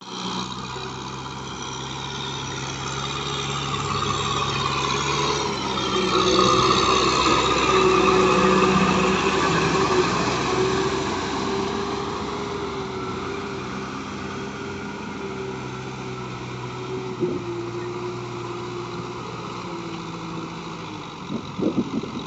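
Kubota M6040SU tractor's four-cylinder diesel engine running steadily under load as its rotary tiller churns a flooded rice paddy. It grows louder from about six to ten seconds in, then fades, with a few brief knocks near the end.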